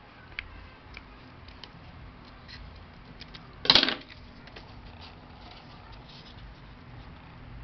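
A few faint snips of scissors cutting card-paper, then one loud, short clatter a little under four seconds in as the metal-bladed scissors are set down on the table.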